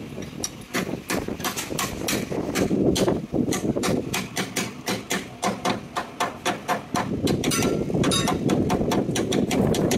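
Hand hammer striking a steel block set in a truck fifth-wheel plate's kingpin throat: a quick, even run of metal-on-metal blows, about four a second, over a steady low rumble.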